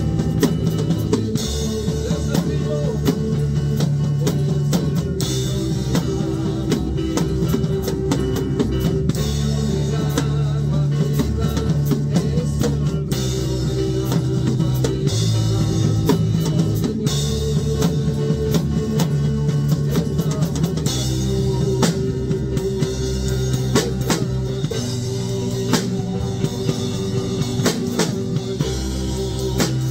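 A live worship band playing an instrumental passage: an acoustic drum kit struck with sticks, with dense cymbal and drum hits over sustained bass notes and other instruments, and no singing.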